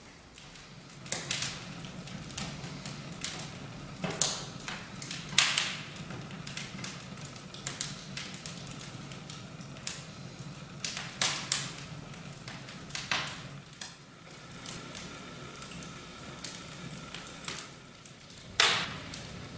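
Fireplace fire crackling: irregular sharp cracks and pops, the loudest about five seconds in and near the end, over a steady low hum.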